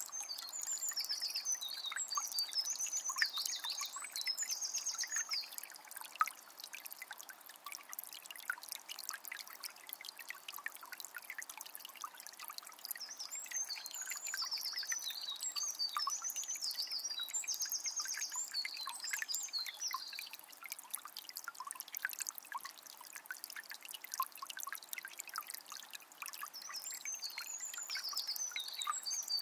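Calm forest river trickling and splashing steadily. A songbird sings high, quickly repeated trilled phrases in three spells: at the start, in the middle, and again near the end.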